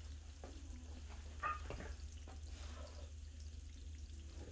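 A few faint shuffles and soft clicks of sneakers and loaded barbell plates as a lifter steps back from a squat rack with the bar on his back, over a steady low hum.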